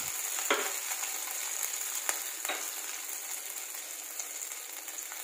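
Grated ginger, whole cumin, asafoetida and cloves sizzling in a tablespoon of hot oil in a steel kadhai: a steady frying hiss, with a few sharp clicks about half a second, two and two and a half seconds in.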